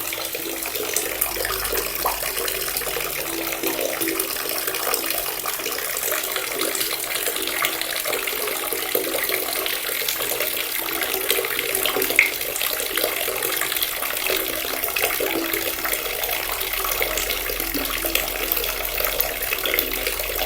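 Water running steadily from a tap, splashing continuously, with one brief louder splash about twelve seconds in.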